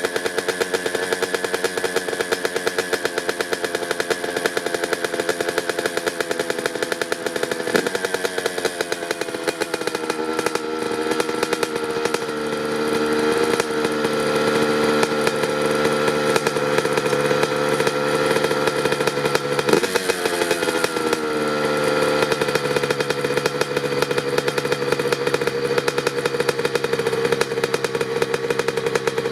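Honda CR85 two-stroke dirt bike engine, breathing through a Pro Circuit R-304 shorty silencer, idling steadily while it warms up after a cold start. Its pitch swings briefly twice, about a third of the way in and again about two-thirds of the way in.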